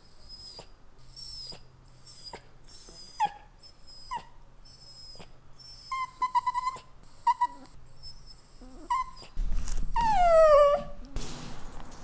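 Italian greyhound whining: a string of short, high-pitched whimpers about once a second, then a louder, longer cry that falls in pitch about ten seconds in.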